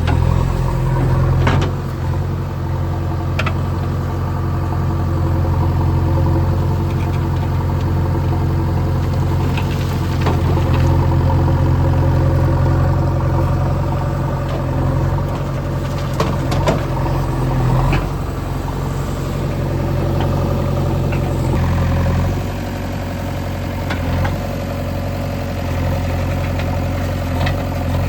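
Heavy diesel engine running steadily at a low, even speed, with a few short knocks or clanks over it.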